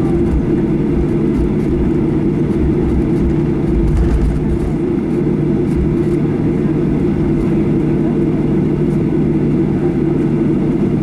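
Steady cabin noise inside a Boeing 737-800 taxiing after landing: its CFM56 engines run at idle with a constant low hum and rumble, and a few low bumps come about four seconds in.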